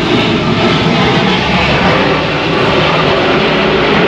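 Airplane flying over, its engine noise a loud, steady rumble and rush.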